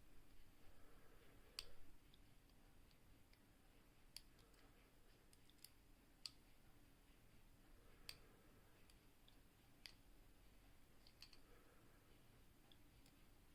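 Faint, scattered metallic clicks from a homemade pick and tensioner working the levers inside a Securit 6-lever oval padlock, a click every second or two as the levers are lifted in small increments.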